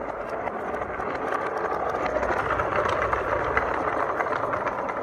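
Motorized wooden model car driving on a hard floor: a steady whir from its small drive motor and wheels, with light clicks and rattles, swelling a little in the middle.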